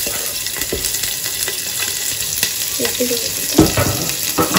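Sliced onion sizzling in hot oil in a pressure cooker, with a steady hiss. A steel ladle knocks against the pot several times as the onion is stirred, the loudest knock about three and a half seconds in.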